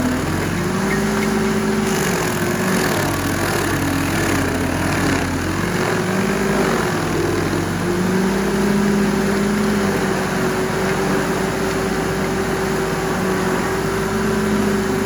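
Predator 56 tracked stump grinder's engine running hard and steadily, its pitch dipping and recovering several times before holding steady for the second half.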